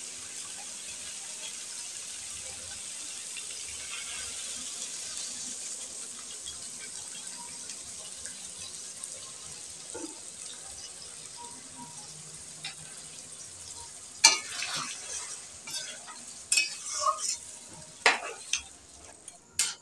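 Mutton and potato curry sizzling in an aluminium kadai just after a little water has gone in, a steady hiss. From about two-thirds of the way through, a metal spatula scrapes and knocks against the pan as the curry is stirred.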